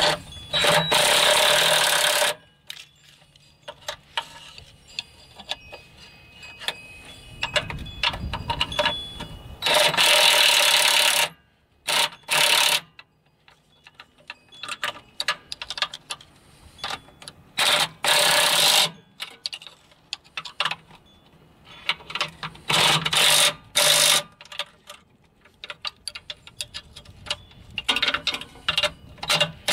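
Ratcheting wrench clicking in repeated bursts of a second or two, with single clicks between, as it turns the mounting nuts of a new clutch slave cylinder.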